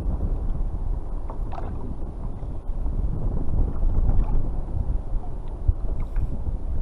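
Wind buffeting the microphone over water sloshing against a kayak's hull on a choppy sea, with a few faint clicks from handling the fishing tackle.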